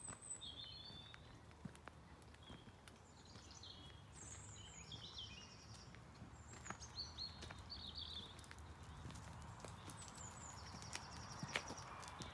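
Songbirds singing in short chirps and trills, with irregular footsteps crunching on a gravel drive.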